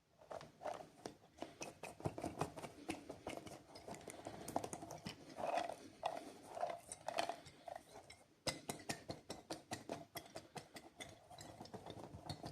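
Candy packaging being handled and unwrapped: dense crinkling and crackling of plastic wrappers with many small clicks, stopping briefly and starting again abruptly about two-thirds of the way through.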